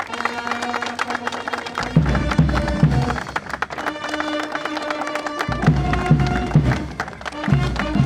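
Instrumental background music with sustained melody notes; a low, pulsing beat comes in about two seconds in, drops out for a couple of seconds in the middle, and returns near the end.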